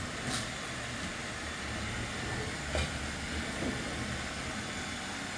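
Roomba robot vacuums running: a steady whirring hiss of their motors and brushes, with a couple of faint knocks.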